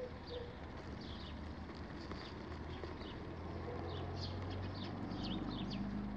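Outdoor ambience of small birds chirping, many short high calls scattered throughout, over a low steady hum.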